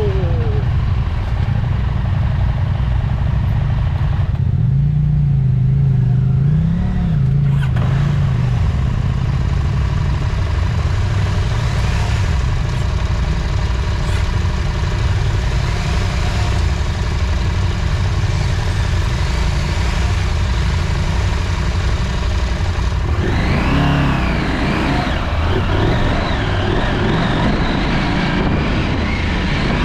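Adventure motorcycle engine running at low speed along a rough dirt trail, heard from the bike, its pitch rising and falling as the throttle is worked, over a steady rushing noise.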